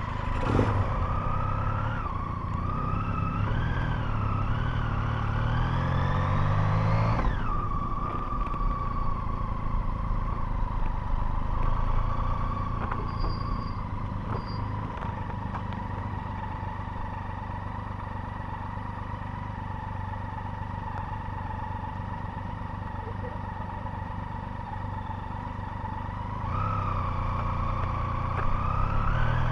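Motorcycle engine pulling away, its revs climbing for several seconds before dropping sharply at a gear change, then running at a steady cruise before the revs rise again near the end.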